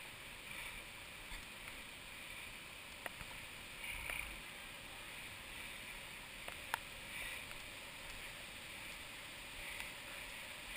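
Steady rushing of a river flowing nearby, with a couple of faint clicks.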